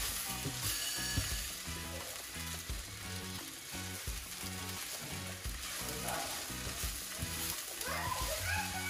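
Fried rice sizzling in a hot pan as it is stirred and tossed, with reggae background music and its steady bass beat underneath.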